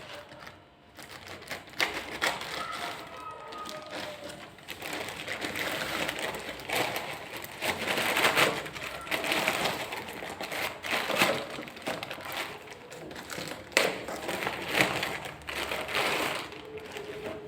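Packaging and a plastic appliance being handled and unboxed: irregular rustling and crinkling with many sharp clicks and taps.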